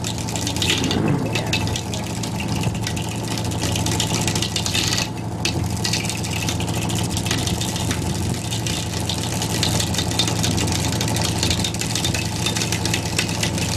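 The sailing ship's onboard machinery running with a steady low hum, with a constant rushing noise of wind and sea over it.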